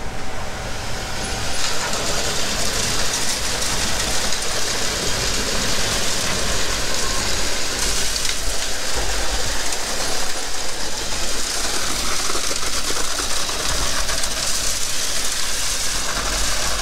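Concrete boom pump truck running under load with a steady mechanical din while wet concrete is pushed through the hose into a column footer.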